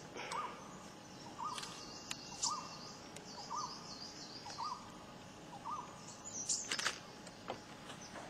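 Wild forest birds calling: one bird repeats a short single note about once a second while other birds add higher chirps. A few sharp clicks come about two-thirds of the way through.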